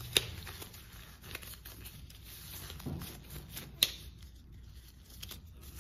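Disposable exam gloves being pulled on and adjusted by hand: light rustling and rubbing of the glove material, with two sharp clicks, one just after the start and one near four seconds in.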